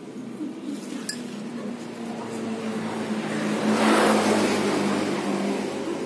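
A motor vehicle going past on the road, its noise swelling to a peak about four seconds in and then fading, over a steady low engine hum.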